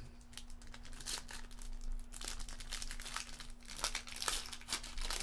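Foil wrapper of an O-Pee-Chee Platinum hockey card pack crinkling and tearing as hands peel it open, a long run of quick crackles.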